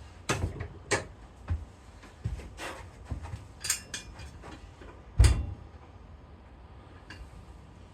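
Metal clinks and knocks of a carabiner and weight plates being handled for a pinch-grip lift, with a heavier thud a little after five seconds in.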